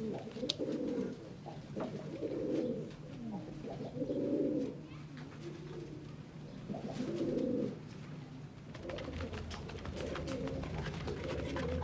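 Domestic pigeons cooing, low rolling coos repeating every second or two.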